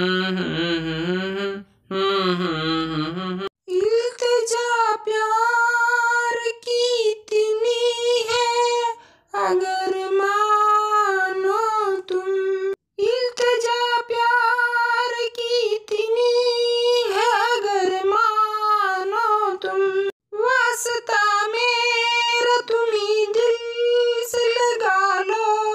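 Wordless singing of the song's interlude melody. A low humming voice carries the first three seconds or so; after a short break a high voice takes over with a wavering melody in phrases, with brief gaps between them.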